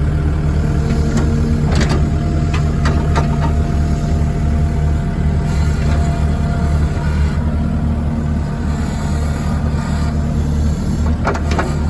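An engine idling steadily, with a few light clicks and knocks over it.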